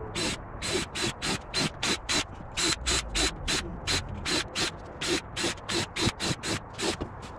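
Cordless nail gun firing into MDF in quick succession, a sharp clack about four times a second.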